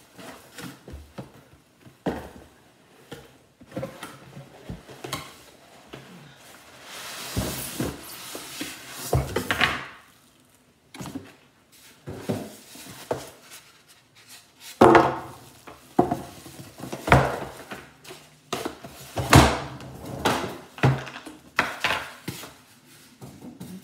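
A boxed George Foreman grill being unpacked: the cardboard box opened, the grill in its foam packing pulled out and set down on a wooden table, and its plastic wrapping rustling. Irregular rustles, scrapes and knocks, with several louder knocks in the second half.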